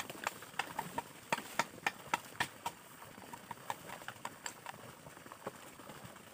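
Machete hacking at a green bamboo pole: a quick, uneven series of sharp knocks, two or three a second.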